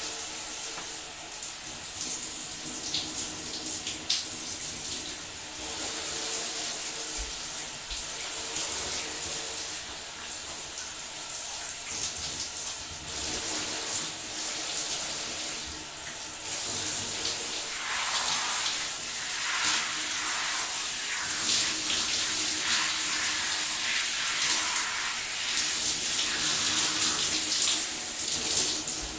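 Shower running: a steady spray of water splashing, with shifting splatter as someone showers under it. It gets somewhat louder about two-thirds of the way through.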